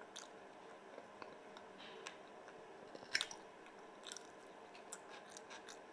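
Close-up mouth sounds of a man chewing pickled herring and boiled potato: soft wet chewing with scattered small clicks, the sharpest a little after three seconds in.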